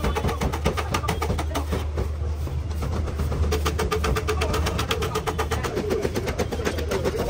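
An engine running steadily at idle, with a rapid, even ticking over a low hum.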